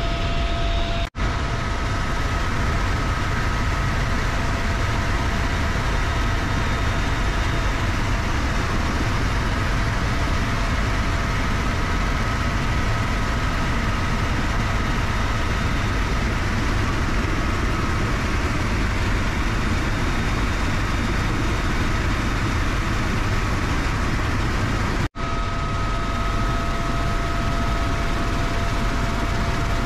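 Steady cabin noise of a UH-1Y Venom helicopter in flight with the cabin door open: the twin turboshaft engines and drivetrain make a constant whine over heavy rotor and wind rush. Two brief dropouts break it, about a second in and about five seconds before the end.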